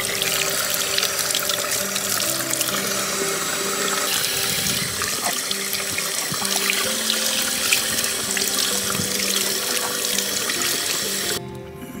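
Running tap water splashing into a sink as vegetables are rinsed under the stream by hand; the water cuts off suddenly near the end.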